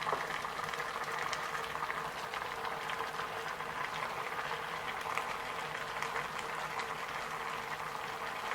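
A pot of soup bubbling on the boil, a steady busy bubbling with small pops and crackles over a faint steady hum.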